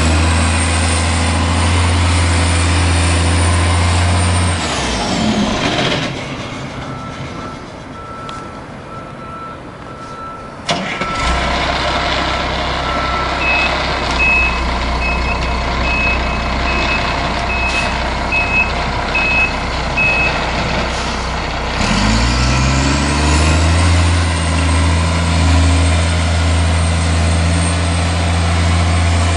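Diesel engine of a fuel-oil tank truck stuck in snow, revving hard, dropping back, then revving up again near the end as it tries to work free. In the middle stretch a backup alarm beeps steadily, and a sudden sharp sound comes about eleven seconds in.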